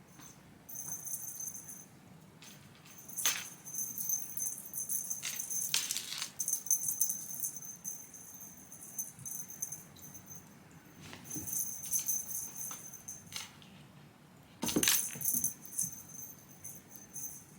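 Jingling, rattling sounds in four bursts lasting from one to a few seconds each, with a few sharp clicks or knocks between them.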